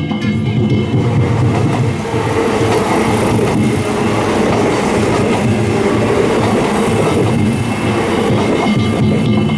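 Kintetsu Minami-Osaka Line train passing over a level crossing: a continuous rumble of wheels on rails, heaviest in the middle.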